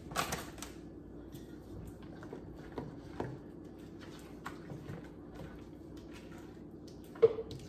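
Spatula stirring walnuts into thick muffin batter in a stainless steel mixing bowl: scattered soft scrapes and taps against the metal, with one sharp knock near the end.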